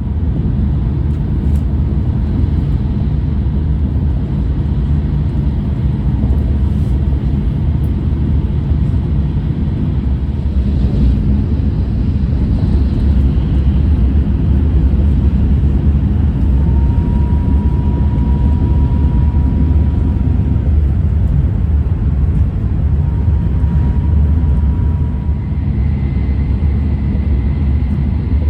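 E6 series Shinkansen (Toshiba IGBT VVVF set) running at speed, heard inside the passenger car: a steady, loud low rumble of wheels and track with a noise haze on top. A faint high whine comes in about two-thirds of the way through and again a little later, and a higher faint tone starts near the end.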